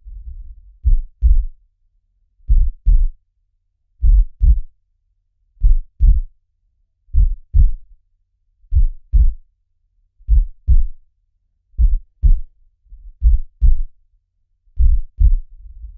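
Slow heartbeat, a pair of low thumps (lub-dub) about every second and a half.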